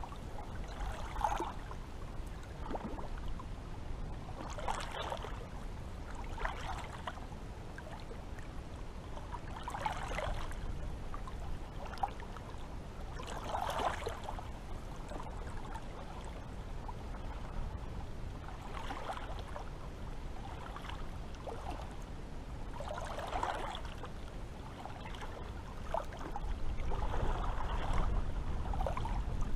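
Small sea waves lapping and splashing, in uneven strokes every second or few, over a steady low rumble; the splashing grows louder near the end.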